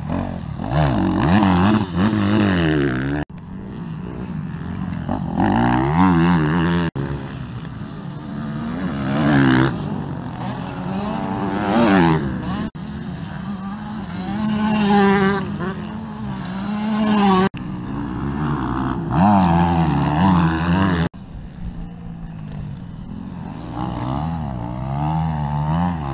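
Motocross motorcycles accelerating hard past close by, engine pitch climbing, breaking at each gear change and climbing again, loudest as each bike goes past. The sound cuts off abruptly several times, jumping from one pass to the next.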